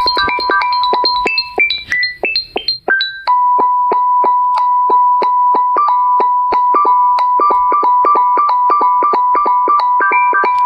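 Electronic ringtone melody of short, bell-like keyboard notes, about four a second, repeating in a loop. Around two seconds in it breaks into a few scattered rising notes. Then a quick run of repeated notes on one pitch starts, and higher notes join in near the end.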